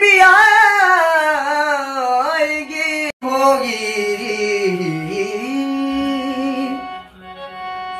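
A man singing in Hindi, drawing out wordless vowels in long held notes with a wavering, ornamented pitch. The first phrase runs about three seconds, and after a brief break a second phrase sinks lower and fades out about seven seconds in.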